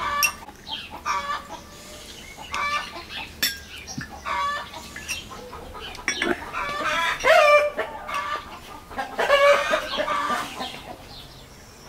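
Chickens clucking: a run of short, repeated calls, loudest past the middle.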